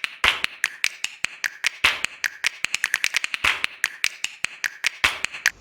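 Metal spoon clinking rapidly and irregularly against a cup while stirring, about nine sharp clicks a second, cutting off suddenly near the end.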